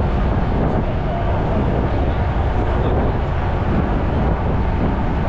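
Ferry under way: a steady low rumble of engine and water noise, with wind on the microphone.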